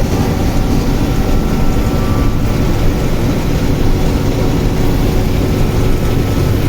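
Passenger train running with a steady rumble.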